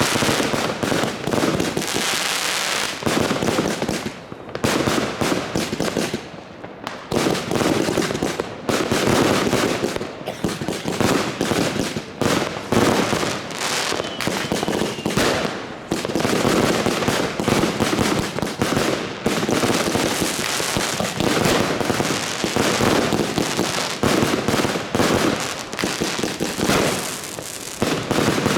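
Fireworks and firecrackers going off in a dense, continuous barrage of bangs and crackling, easing briefly a few seconds in before building again.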